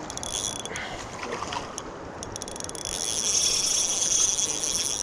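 Small spinning fishing reel (Shimano Miravel 1000) working during a fish fight: a mechanical whirring that grows louder from about halfway through, over a steady background rush.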